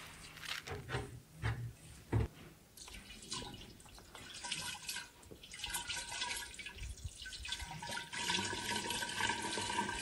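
A few knocks in the first two seconds, then water poured from a plastic jug into a clay jar, splashing steadily from about four seconds in.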